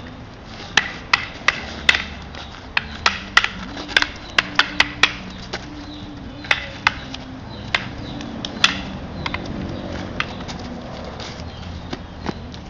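Arnis sticks clacking together in a Balintawak strike-and-block drill: a quick run of about a dozen sharp clacks in the first five seconds, then a few spaced ones, and faint ones near the end.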